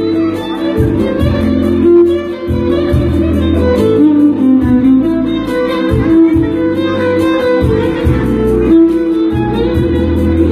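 Violin playing a melody over a backing track with a pulsing bass and a steady drum beat.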